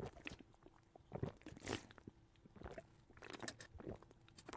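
Faint drinking sounds: sips and swallows of sweet tea from a plastic bottle, with scattered soft mouth clicks and a brief breath.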